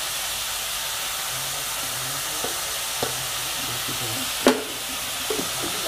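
Sliced carrots, beans, onions and green chillies frying in oil in a steel kadai: a steady sizzling hiss, with a few metal clinks from stirring, the loudest about four and a half seconds in.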